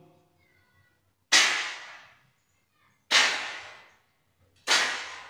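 Three gunshots, each a sharp bang that rings out and fades, spaced about a second and a half apart.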